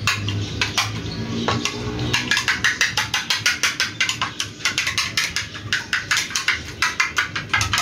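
An egg being beaten by hand with a metal spoon in a small ceramic plate: fast, rhythmic clicking of metal on china, several strokes a second.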